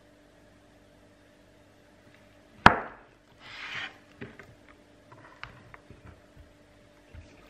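Slices of clear soap handled by hand on a table: one sharp crack a little over two and a half seconds in, the loudest sound, then a short scraping hiss and a few light taps and clicks.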